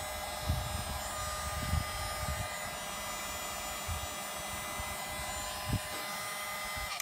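Electric heat gun running, a steady blowing whir with a thin motor whine, used to shrink heat-shrink tubing over a crimped cable lug. Soft knocks of handling sound underneath, and the gun cuts off suddenly at the very end.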